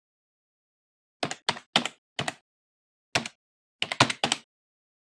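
Computer keyboard keystrokes, about nine sharp clicks in uneven bursts with short pauses between, typing along with text appearing on screen; they end about four and a half seconds in.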